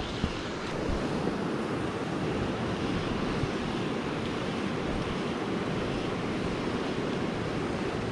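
Steady rushing of a fast, rocky river as the current runs over stones and through a riffle.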